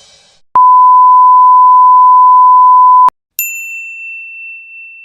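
A loud, steady censor bleep held for about two and a half seconds and cut off sharply, followed by a single high-pitched ding that rings on and slowly fades.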